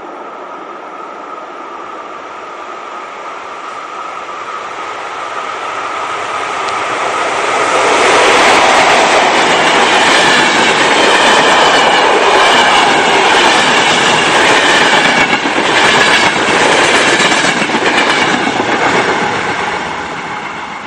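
Electric-hauled passenger express train approaching and passing at speed: the rumble builds, then the wheels clack over the rail joints car after car before it begins to fade near the end.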